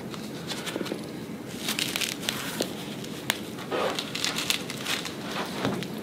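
Y-strap traction on the neck: scattered crackling and clicks as the strap is pulled, with one sharp click about three seconds in.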